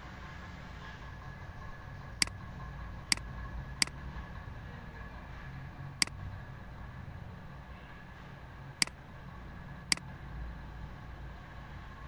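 Computer mouse clicking, six sharp single clicks spaced irregularly over several seconds, over a steady low hum.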